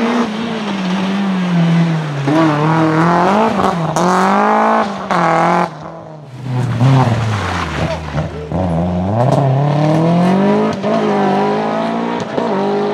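Toyota Celica GT-Four ST165 Group A rally cars, with their 3S-GTE 2.0-litre turbocharged four-cylinder engines, revving hard under acceleration. The pitch climbs and falls with each gear change. The engine sound drops away sharply about six seconds in, then builds again from low revs, and a couple of sharp cracks come near the end.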